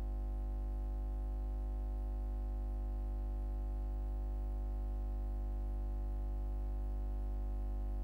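Steady, unchanging electrical hum with a buzzy row of overtones. It is not a sawmill sound; the film itself is silent.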